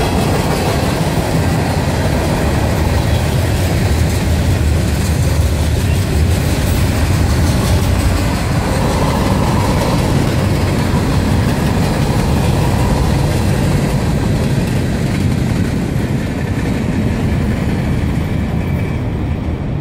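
A freight train's cars rolling past close by: a loud, steady rumble of steel wheels on rail, with some clacking over the rail joints. It eases off slightly near the end.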